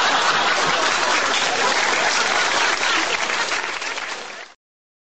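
Crowd applause, steady, cutting off suddenly about four and a half seconds in.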